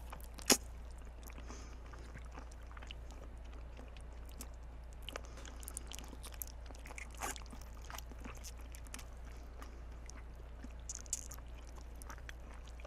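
Faint mouth sounds of someone chewing live octopus: scattered small wet clicks and smacks, one sharper click about half a second in, over a steady low hum.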